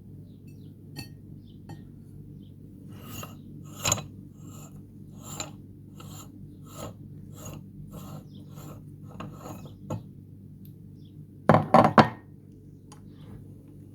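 Meat grinder working through chocolate marshmallows: evenly repeated rasping strokes, about one and a half a second, then a brief loud clatter near the end.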